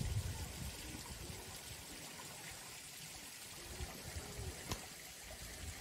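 Faint steady rushing background noise, with one sharp click about three-quarters of the way through.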